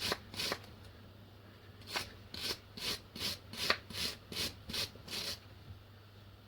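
Hand wire brush scrubbing rust off a metal car part in short back-and-forth strokes, about three a second, pausing for a moment after the first two strokes.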